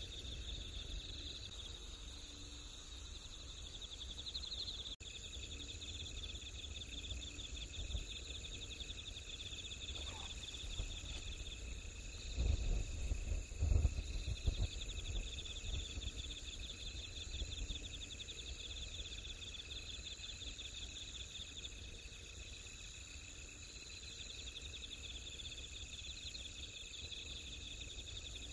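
A night chorus of field crickets and other insects, trilling steadily at several pitches. A low, muffled rumble rises about twelve seconds in and fades by fourteen.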